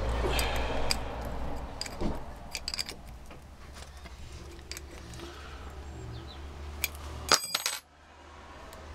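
Scattered metallic clicks and clinks as a Bosch starter motor is handled and turned over by hand, with a short clatter and a brief metallic ring about seven and a half seconds in. A steady low hum underneath cuts off suddenly just after.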